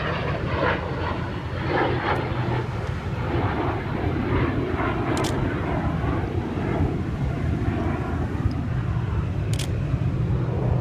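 Airplane engine noise from an air show flypast: a steady, continuous drone with a few faint clicks.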